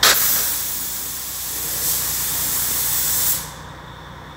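Compressed-air paint spray gun hissing as the trigger is pulled, spraying for about three and a half seconds and then cutting off, over a steady low hum.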